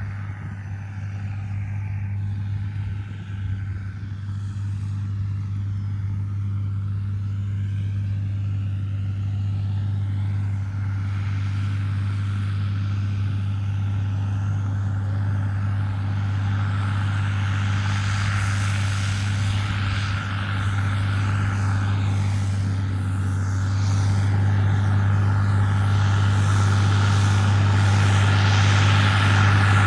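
New Holland T8 tractor's diesel engine running steadily under load while pulling a planter, a deep even drone that grows gradually louder.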